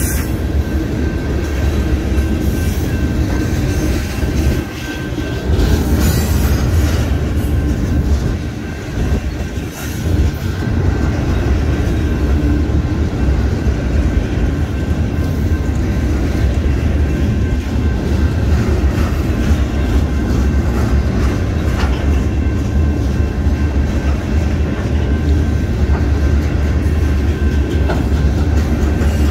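Freight train of Herzog ballast hopper cars rolling steadily past, a continuous low rumble of wheels on rail with a few brief clanks.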